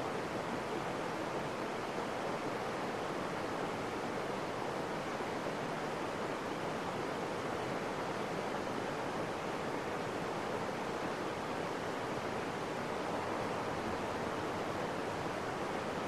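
Stream water running over rocks: a steady, even rushing with no change in level.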